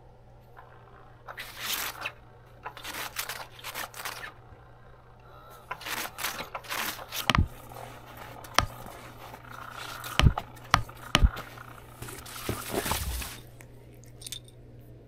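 A cat play mat's crinkly fabric rustling and scraping in irregular bursts as a cat scrabbles at a feather toy moving under it. Several sharp knocks come in the second half.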